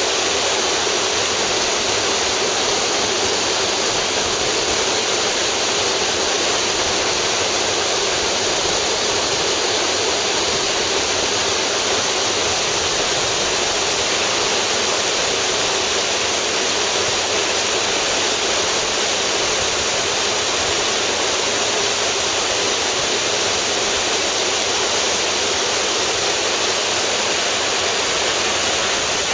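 Mountain creek whitewater rushing through a narrow rock channel: a loud, steady rush of water with no let-up.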